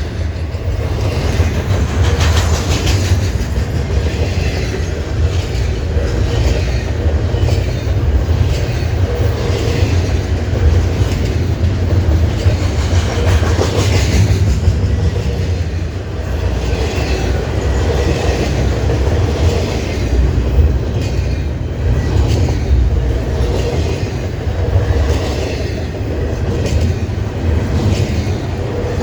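Freight train cars rolling past with a steady, heavy rumble. The wheels give repeated clicks as they pass over the rail joints.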